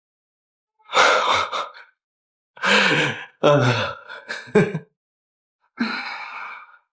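A person's breathy gasps, sighs and moans in four short bursts, with silence between them.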